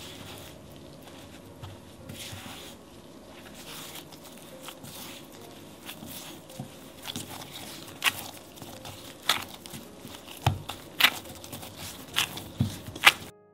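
Kitchen handling sounds from food preparation: faint rustling at first, then about ten sharp clicks and taps from about two-thirds of the way in, the loudest near the end, over a low steady hum.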